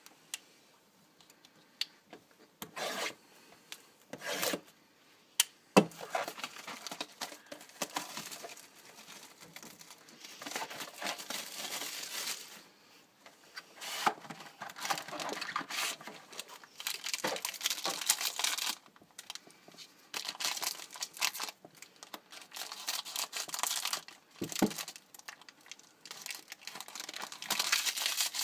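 Plastic wrapping on a sealed trading-card box being torn open and crinkled. A few sharp clicks and short rustles come first, then crinkling and rustling goes on almost without a break from about six seconds in.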